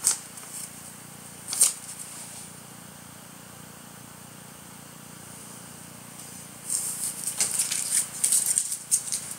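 Faint handling noise over a steady hiss: a single click about a second and a half in, then a run of quick clicks and rustles in the last few seconds.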